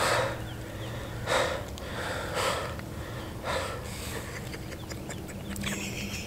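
A man's heavy, shaky breathing: four loud breaths about a second apart as he comes down from the adrenaline of the shot.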